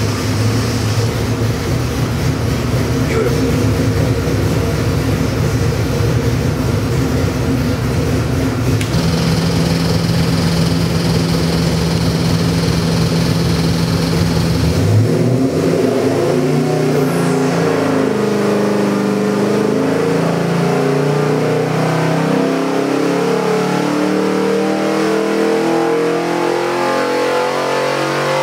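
A 352 cubic-inch stroker small-block Ford V8 with fuel injection, running on an engine dynamometer. It idles for about the first half. Then it is loaded through a dyno sweep pull, its note climbing toward about 5,600 rpm near the end, where it is making about 511 horsepower.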